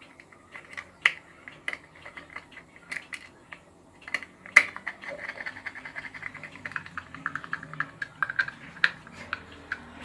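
Small clicks and scraping of a screwdriver driving the mounting screws of a wall plug socket into its sunk box, scattered at first, then about halfway through becoming a quick, close-spaced run of clicks as the screw turns.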